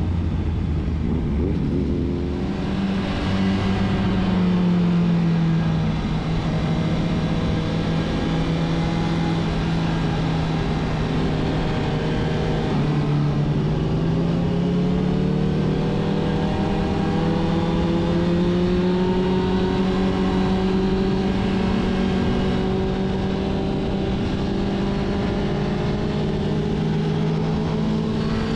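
A sport motorcycle's engine running under way at a fairly steady pitch, over a constant rush of wind and road noise. The engine rises in pitch a few seconds in, eases back slightly, then climbs again around the middle and holds there.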